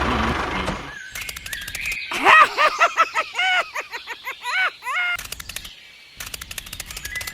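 A bird chirping in a quick run of rising-and-falling calls, about three a second, with rapid fast clicking around them. The calls stop after about five seconds.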